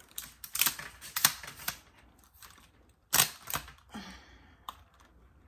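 Telescoping ring-light stand being collapsed: its sections slide and knock together in sharp clicks, a quick run in the first two seconds and a loud pair about three seconds in, with a short scrape just after four seconds.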